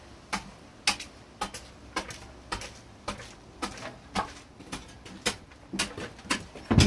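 Sharp ticks repeating fairly evenly about twice a second, with a heavier knock just before the end.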